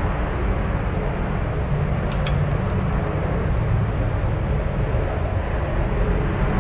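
Milling machine running steadily through a cut, opening up a hole in the tooling plate, with a few faint clicks about two seconds in.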